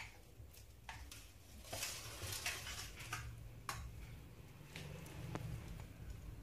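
Metal spoon clinking against a steel bowl and pot as chicken korma is scooped out and dropped onto rice: several faint separate clicks, with soft scraping and wet spooning between them.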